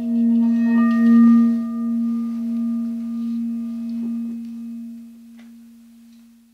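A single deep bell-like tone with several overtones, ringing on and slowly fading away over about six seconds: a logo sting.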